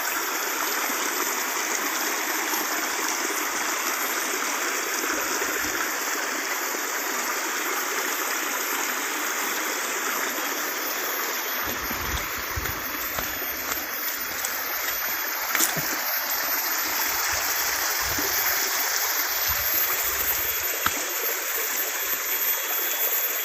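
Small forest stream running steadily with an even rushing of water. Low bumps on the microphone come in the second half, with one sharp click.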